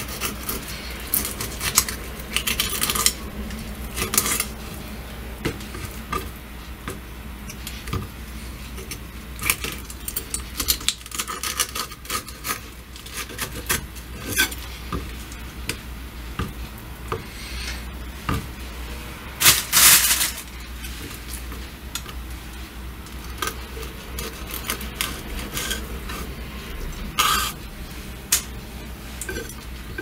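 Kitchen knife scraping and tapping on a cutting board while filleting small kisu (Japanese whiting): irregular clicks and short scrapes, with a longer, louder scrape a little before twenty seconds in and another near the end, over a steady low hum.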